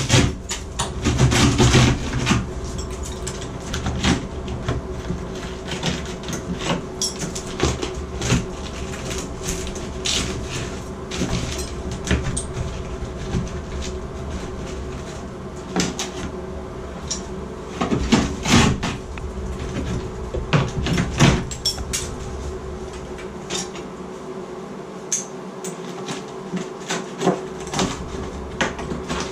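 Irregular knocks, clunks and clatter of hand work on the plumbing inside an opened tile shower wall, with clusters of sharper hits about two seconds in and again around two-thirds of the way through, over a steady low hum.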